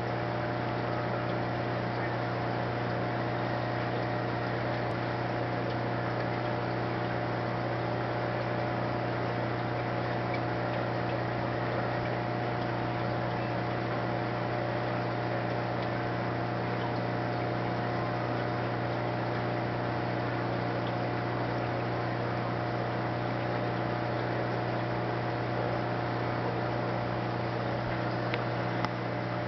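Steady electrical or machine hum with several steady tones over a light hiss, unchanging throughout, and a small click near the end.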